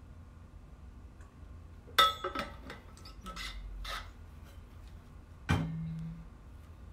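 Handling noises: a sharp clink with brief ringing about two seconds in, a couple of seconds of rubbing, then a knock followed by a short low hum.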